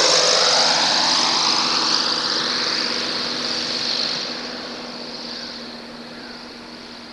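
ATR-42 twin-turboprop airliner passing by and moving away, its propeller and turbine whine dropping in pitch and fading steadily.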